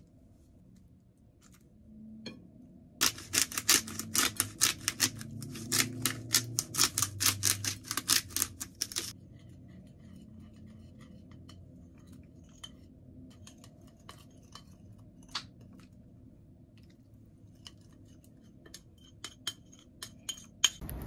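Rapid, irregular clicking and scraping of kitchen utensils for about six seconds, cutting off suddenly, then a few scattered light clinks, with more near the end.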